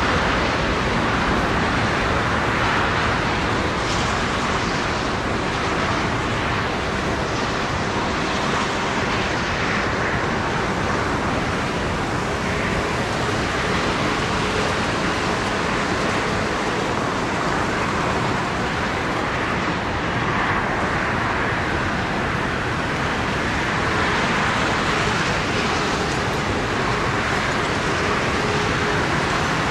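Boeing 747 landing on a wet runway: the jet noise of its four engines and the spray from its wheels make a steady rushing roar through the touchdown and rollout, swelling and easing slightly.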